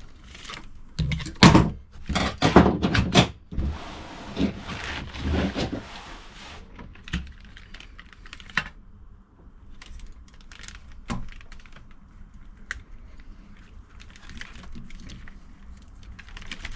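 Clatter and sharp knocks of the fuel pump assembly being handled and worked on, with a rushing noise lasting a couple of seconds about four seconds in, then occasional single clicks.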